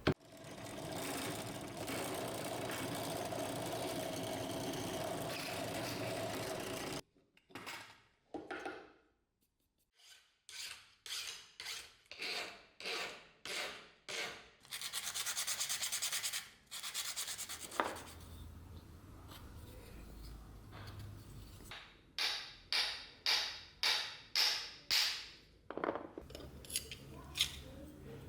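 Hand rubbing strokes, as in sanding or filing. About seven seconds of continuous rubbing are followed by a short pause, then separate back-and-forth strokes at roughly one to two a second, with a brief steady stretch between them.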